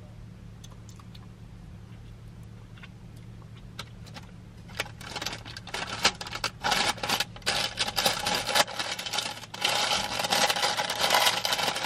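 Paper bag crinkling and rustling as it is handled and folded, starting about five seconds in, over a low steady hum.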